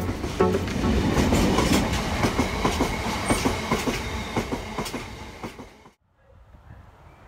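Freight train of open box wagons rolling past at close range, the wheels clicking and knocking over the rail joints. The sound fades out near the end.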